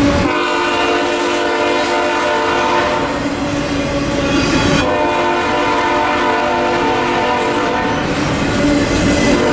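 Double-stack intermodal freight cars rolling and clattering past a crossing, while a locomotive's multi-chime air horn sounds two long blasts, the second starting about five seconds in.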